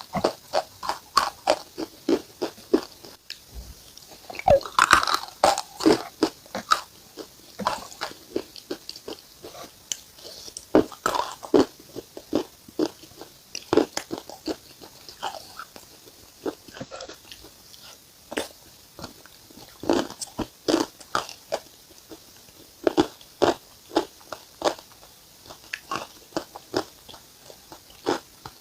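A person biting and chewing something hard and crunchy close to the microphone: a continuous string of sharp, irregular crunches, several a second in clusters.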